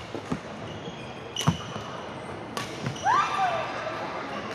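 Badminton rackets striking a shuttlecock in a rally: two sharp hits about a second apart, the first the louder, with sneakers squeaking on the wooden court. Just after the second hit comes a short high sound that rises and then falls in pitch.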